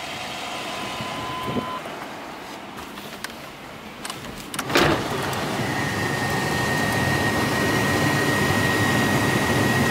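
Pickup's V8 idling quietly inside the cab. A bit under five seconds in there is a knock, then the air-conditioning blower comes on and builds to a steady rush of air with a thin whine over it.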